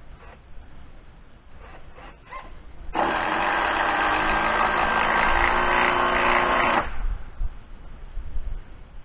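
Power drill running steadily for about four seconds, driving a screw into lumber, after a few light knocks.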